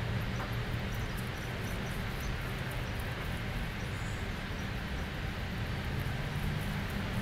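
Steady outdoor background noise: a low hum under an even hiss, with scattered faint light ticks.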